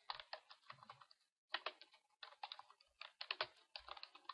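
Typing on a computer keyboard: quick runs of key clicks, broken by a couple of short pauses.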